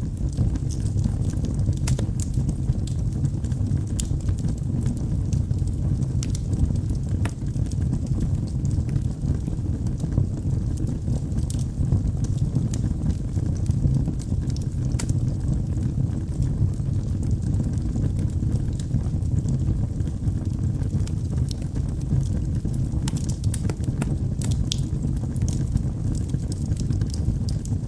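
Wood fire burning in a fireplace: a steady low rumble of flames with scattered sharp crackles and pops from the burning logs, a few louder ones coming close together toward the end.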